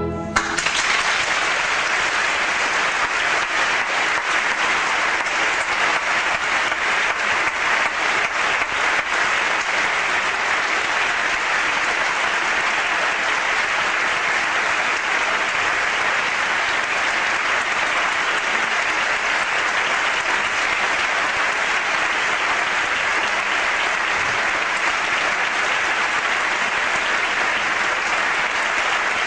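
Theatre audience applauding steadily. An orchestra's last chord cuts off right at the start as the applause takes over.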